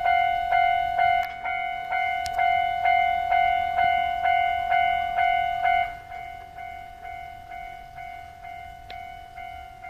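Japanese level-crossing warning bell ringing 'kan-kan', a steady ringing tone struck about twice a second. About six seconds in it abruptly drops to a lower volume and keeps ringing.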